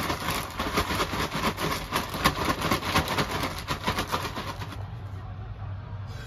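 Quick, crinkly rustling as hands toss and pack chili-coated cabbage for kimchi, about four or five strokes a second, which stops abruptly about five seconds in and leaves a steady low hum.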